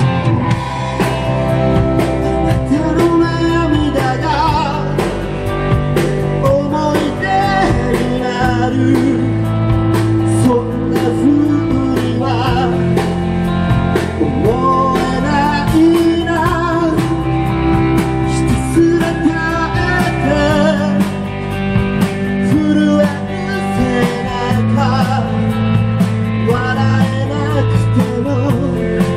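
Live rock band playing: a male voice singing over electric guitars, bass guitar and a drum kit keeping a steady beat.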